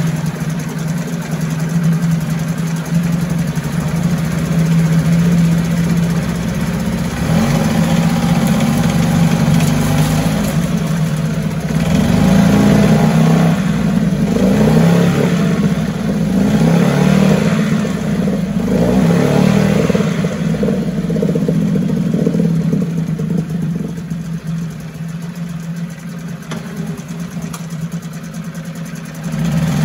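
1974 Mercury 4 hp single-cylinder two-stroke outboard running in a test barrel. It runs steadily at first, then is revved up and down several times with the twist-grip throttle, about one rise every two to three seconds, before easing back to a lower speed near the end.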